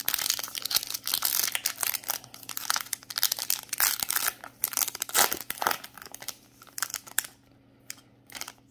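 Foil trading-card pack wrapper being torn open and crinkled in the hands: a dense crackling rustle that stops about seven seconds in, followed by a few faint clicks as the cards come out.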